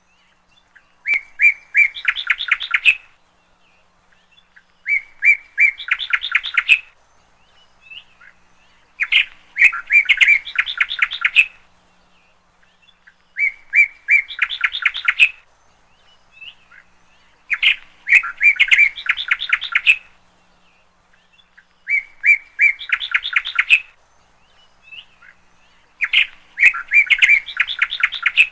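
A songbird singing the same short song seven times, about every four seconds: a few clear notes and then a fast run of rapid notes, each song lasting about two seconds.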